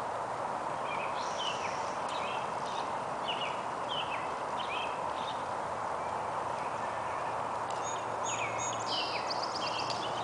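Faint hoofbeats of a horse moving on a dirt riding arena under a steady hiss of outdoor background noise. A small bird chirps over it with high, downward-sliding notes in two bouts, through the first half and again near the end.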